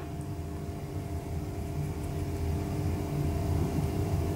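Steady low rumble with a faint, even hum: background noise with no distinct events.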